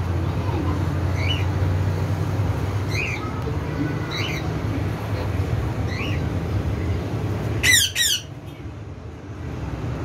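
Cockatiels chirping in short calls every second or so, then two loud, shrill squawks close together about three-quarters of the way through. A steady low hum runs underneath.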